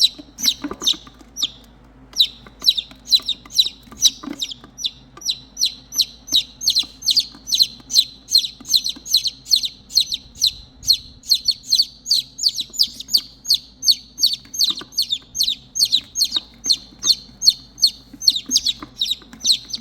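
Baby chicks peeping loudly and without a break, a run of short, high, falling peeps about three to four a second, with a brief pause near the start. These are the calls of chicks left without the mother hen, calling for her.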